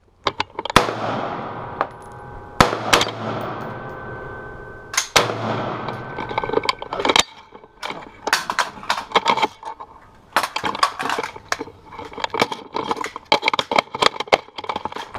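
AR-15 rifle shots: a few loud shots in the first five seconds, each with a long echoing decay, then a busier stretch of many quicker, quieter cracks and clatter.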